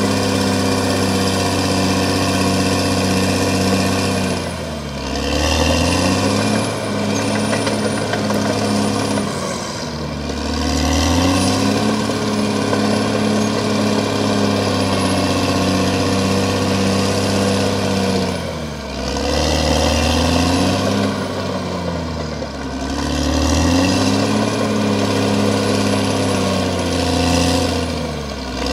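CAT D6R XL bulldozer's diesel engine running hard while working, its revs dropping and climbing back up about five times.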